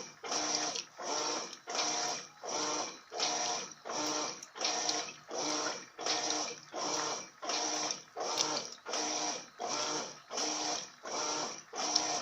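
Electrolux LF80 top-loading washing machine agitating a load of sheets: the motor swings the agitator back and forth in short, even strokes, about three every two seconds, each with a humming motor tone.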